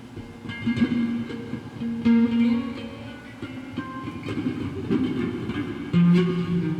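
Bass guitar played solo: plucked notes that ring on, with new notes struck about a second in and around two seconds in, and a lower, louder note near the end.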